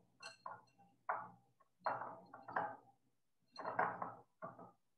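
A hand tossing thin zucchini slices in a glass bowl to coat them with olive oil: soft, irregular bursts of rustling and light clinks in four short clusters.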